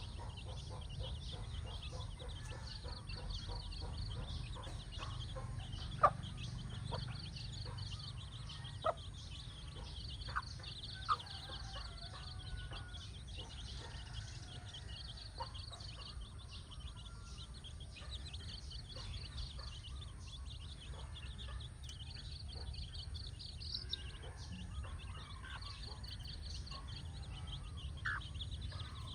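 Hen clucking in short, sharp calls now and then, over her chicks' faint peeping. Behind them is a steady low rumble and a high chirping that pulses on and off about every two seconds.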